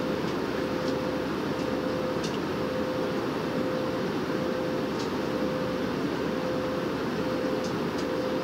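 Cabin noise of an Airbus A320-family airliner at cruise altitude: a steady, deep rush of jet engines and airflow with a steady hum running through it. A few faint light clicks are heard now and then.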